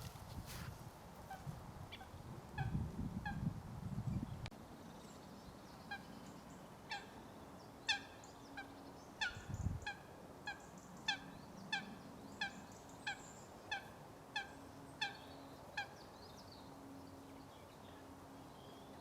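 A goose honking in a long series of short calls, about one to two a second. Gusts of wind rumble on the microphone about three seconds in.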